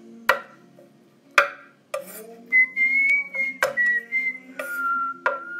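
A person whistling a few notes of a tune, over a handful of sharp knocks of a chef's knife on a wooden cutting board chopping garlic. The whistling starts about halfway through and drops to a lower note near the end.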